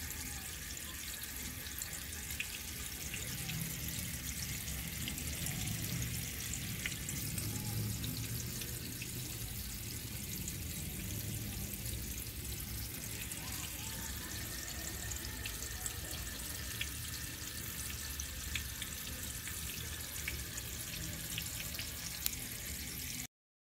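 Steady hiss of running water, with a low hum underneath and scattered small ticks and drips; it cuts off suddenly near the end.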